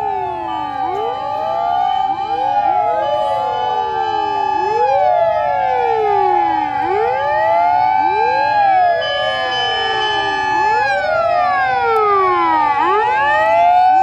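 Several fire-vehicle sirens sounding together, their wails rising and falling about every two seconds out of step with one another, over a steady held siren tone.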